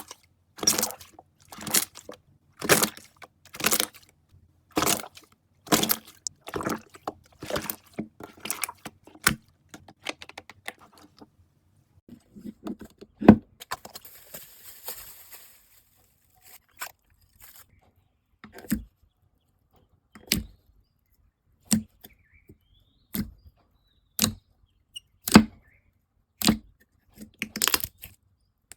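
Slime being worked by hand, giving short, sharp pops or crackles: about one a second at first, then fewer and more spaced out, with a brief hiss about halfway through.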